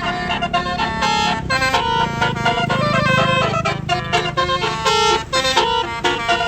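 Bus telolet horn, a Basuri multi-tone horn, playing a quick melody of changing notes, over a low rumble that swells in the middle.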